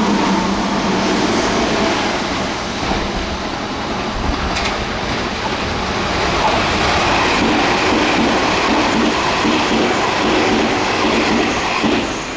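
Meitetsu express electric train passing at high speed: a loud, steady rush of wheels on rail with a few sharp clicks. The sound falls away near the end as the train goes by.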